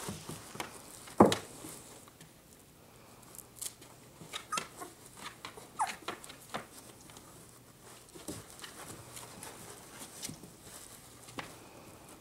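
Cocker spaniel puppies and their mother moving about on rustling puppy pads in a plastic pool: scattered scuffs and paw patter, a sharp knock about a second in, and a short falling squeak about halfway through.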